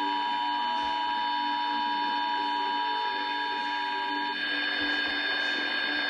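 Emergency Alert System attention tone, a steady electronic two-note tone played through a computer's speakers, cutting off about four seconds in.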